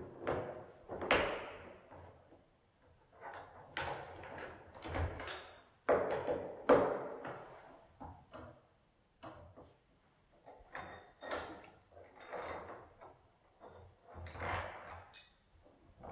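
Screwdriver work on a metal lock escutcheon fitted to a wooden door: irregular scrapes, clicks and knocks of tool, plate and screws against metal and wood, with some high metallic clinks.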